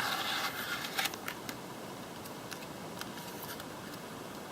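Handling of a boxed CPU's cardboard box and plastic packaging as it is opened: a brief rustle at the start and a few light clicks about a second in, then only faint room hiss.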